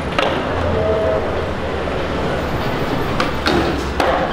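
Skateboard wheels rolling over concrete with a steady rumble, and a few sharp clacks of the board, mostly in the last second and a half.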